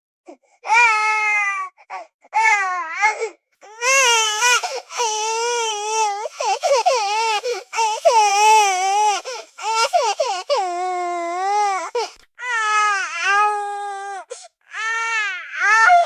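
A baby crying loudly: a run of cries, each a second or two long, broken by short pauses for breath, the pitch wavering up and down within each cry.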